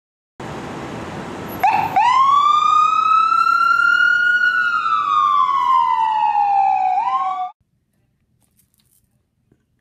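Ambulance siren wailing over street traffic noise: one slow rise in pitch, a long slow fall, then a brief upturn before it cuts off suddenly.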